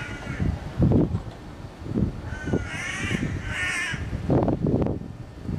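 A bird giving harsh, cawing calls, two of them about a second apart around the middle. Irregular low bumps and rumbles on the microphone sound throughout, the loudest about a second in.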